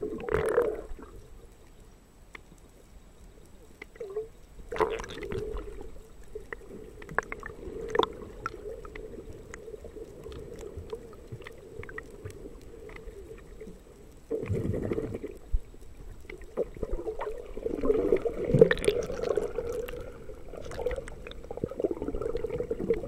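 Water heard through a submerged camera: muffled sloshing and gurgling under a steady hum, with scattered small clicks and knocks. It surges louder about 5 s in, again at about 15 s, and through most of the last third.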